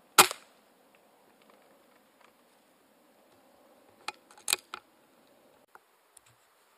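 A single air rifle shot, a sharp loud crack just after the start with a short tail. About four seconds in comes a quick run of smaller sharp clicks and knocks as the rifle is handled.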